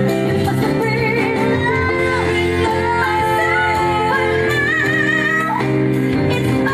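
A live pop band playing, with a woman singing lead over bass guitar and keyboard; her sung line wavers and glides over steady held chords.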